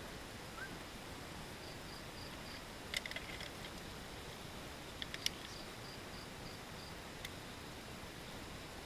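Steady background hiss with a faint insect chirping in short pulsed runs, about four pulses a second, twice. A few sharp clicks come about three and five seconds in.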